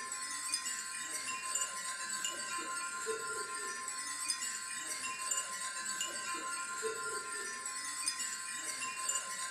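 Wind chimes tinkling continuously, many short overlapping high notes, over a steady ringing tone, with a soft lower note returning every few seconds.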